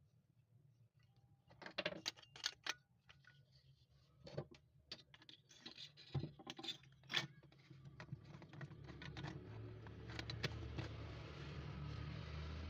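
Scattered light clicks and knocks of small hard parts being handled, then a low steady hum with hiss that builds up over the last few seconds.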